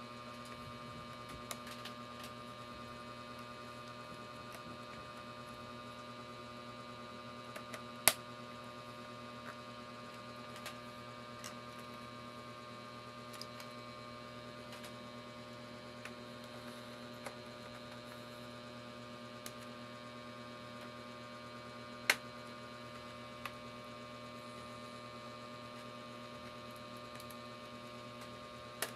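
Steady electrical mains hum with a stack of buzzing overtones, with scattered light clicks and two sharp, louder clicks, one about a third of the way in and one about three quarters of the way through.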